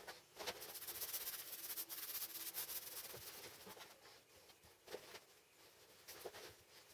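Rubbing and scraping strokes on a surface, strongest over the first half, then fading to a few scattered clicks.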